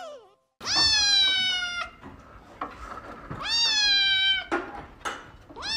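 A kitten meowing: two long, loud meows, each rising and then held, with a third starting near the end.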